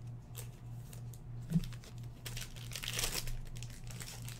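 Trading-card packaging crinkling and rustling as cards are handled and unwrapped by hand, busiest a little past halfway, with a soft thump about a second and a half in.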